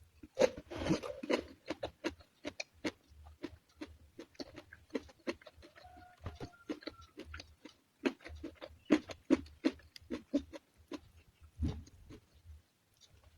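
Close-miked chewing of crunchy food: a quick, irregular run of crisp crunches and mouth clicks, with a couple of short pauses.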